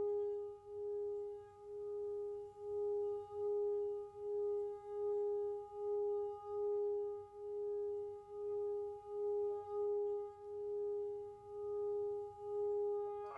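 Tibetan singing bowl sounding one steady tone with fainter overtones above it, pulsing in slow, even swells about every second. A light strike comes right at the end.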